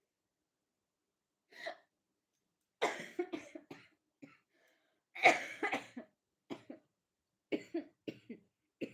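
A person coughing in short, sharp fits of three or four coughs, a new fit every two seconds or so.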